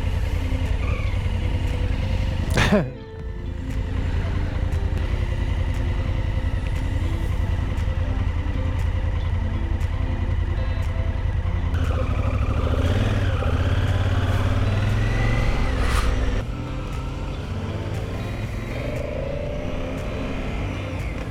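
Adventure motorcycle engine running under way with wind noise, heard from a camera mounted on the bike. There is a brief falling whoosh about three seconds in, and the sound drops a little in level at about sixteen seconds.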